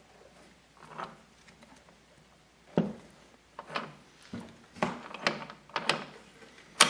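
Sharp metallic clicks and clunks from a 1996 Maico 440's transmission gears and shift mechanism, turned by hand in the open engine case to test the shifting: a single click about a second in, then clunks about every half second from nearly three seconds in.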